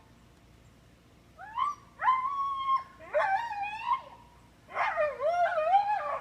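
Siberian Husky screaming, a high, girl-like scream he makes when tied out. About a second and a half in comes a short rising cry, then three long drawn-out cries, the later two wavering up and down in pitch.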